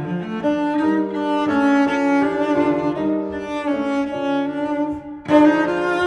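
Instrumental background music of sustained, string-like notes that change every half second or so, with a brief dip and a loud new chord just before the end.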